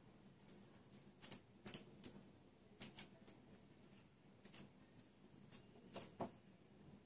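Near silence: quiet room tone with a scattering of faint, short clicks and ticks at irregular intervals.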